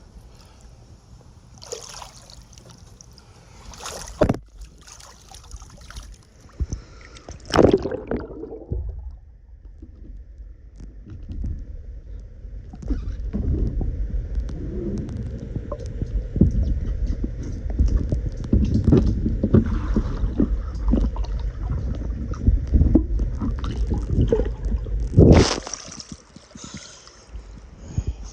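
Above-ground pool water sloshing and gurgling while the liner is worked on underwater, with scattered knocks and handling bumps. It grows louder and busier about halfway through, then drops back near the end.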